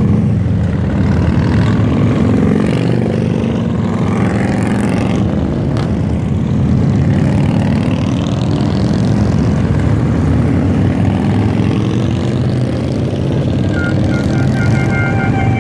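A procession of heavy touring motorcycles riding past in a steady stream, their engines blending into one continuous low rumble.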